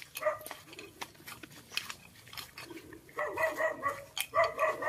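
A dog barking in quick repeated yaps in the second half, after scattered light footsteps and rustling through undergrowth.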